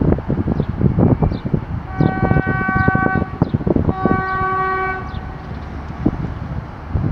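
Train horn sounding two held blasts, about a second each, roughly two seconds in and again at four seconds, from an approaching passenger train. Wind buffets the microphone throughout.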